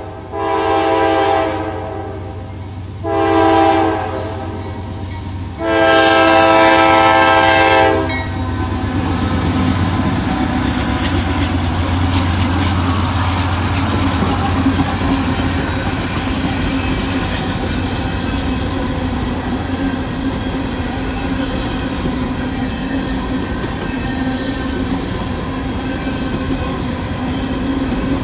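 CSX freight locomotive's multi-note air horn sounding the end of a grade-crossing signal: a long blast, a short one, then a final long blast. The diesel locomotives then rumble past, followed by the steady clatter of empty coal hopper cars rolling over the rails.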